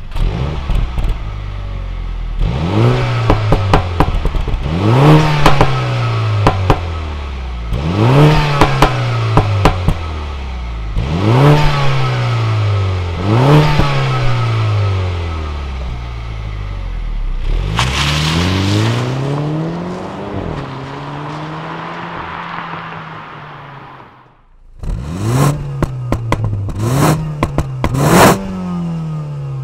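A 2016 Mini Clubman Cooper S's turbocharged four-cylinder engine is revved repeatedly, each rev rising quickly and falling away more slowly. As the revs drop, the exhaust gives off a string of pops and crackles. The sound cuts out briefly about two-thirds of the way through, then comes back with three quick blips of the throttle.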